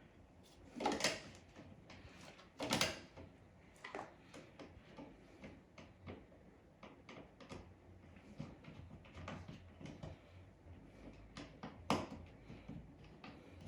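Faint, scattered clicks and knocks of hand work fitting a wall outlet and its cover plate in the electrical box, with louder knocks about a second in, near three seconds and near twelve seconds.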